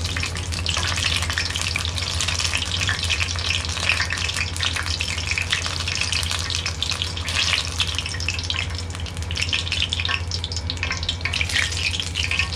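Batter-coated onion rings deep-frying in hot oil in an iron pot: a steady crackling sizzle full of tiny pops, over a steady low hum.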